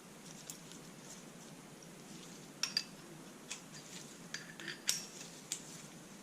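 Small metal hand tools and parts clinking against each other as they are handled: a scatter of sharp clinks, some with a brief metallic ring, in the second half.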